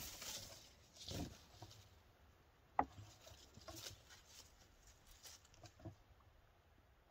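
Faint, scattered rustling and light pattering of kittens moving about in dry leaves and grass around a cloth-draped table, with one sharp click about three seconds in.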